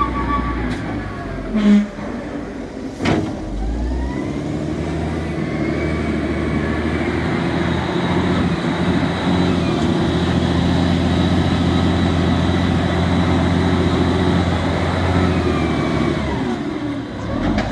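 An engine running steadily, its pitch rising and falling now and then, with two sharp knocks about two and three seconds in.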